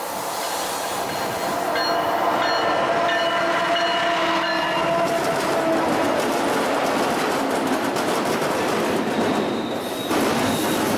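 A diesel-hauled freight train passing close by: the two lead diesel-electric locomotives, a GP38-2 and an SD60E, grow louder over the first second, with their engines' steady pitched hum for a few seconds. The hum fades, then steady wheel and rail rattle follows from the double-stack container well cars.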